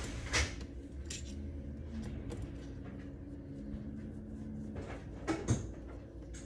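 A few short clicks and knocks of hands and tool working on a rifle's scope ring screws: one about half a second in and two close together near the end.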